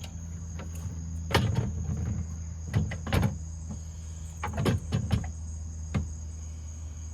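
Scattered clicks and knocks from hands working the rear window glass and its regulator inside a car door, roughly one or two a second, over a steady low hum and a steady high whine.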